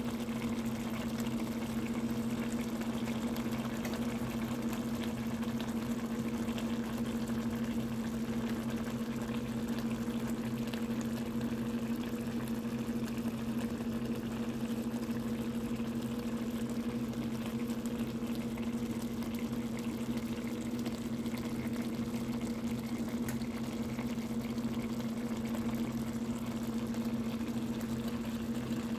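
Corned beef and cabbage simmering in a skillet, the broth bubbling and crackling steadily, over a constant low hum.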